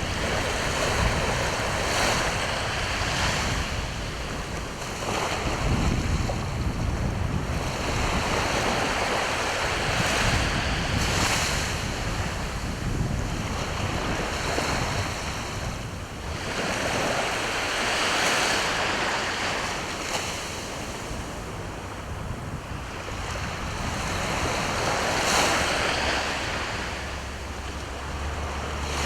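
Sea waves washing onto the shore, each surge swelling and falling back every few seconds, with a low rumble underneath.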